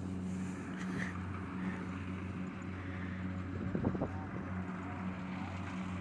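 Kubota DC70 Plus rice combine harvester's diesel engine running steadily under load with a constant low hum, working the crop.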